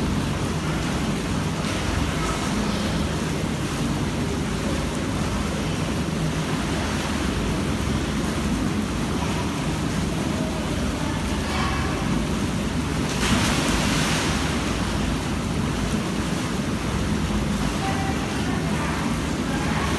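Hot tub running: a steady rush of churning water, briefly louder about two-thirds of the way through.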